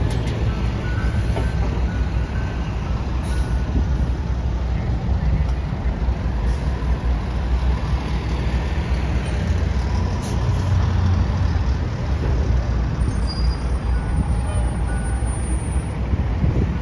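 City street traffic: a steady din of motor vehicles with a constant low engine rumble.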